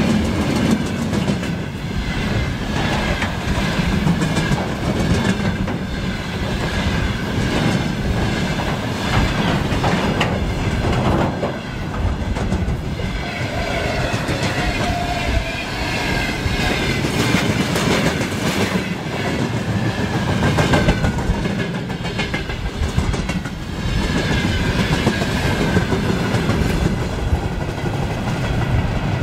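Train passing close by, its wheels clattering over rail joints over a steady rumble, with a faint wavering high ringing from the wheels and rails.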